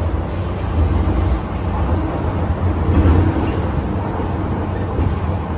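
Interior of an MTR M-Train electric metro car running on the track: a steady low rumble of wheels and running gear.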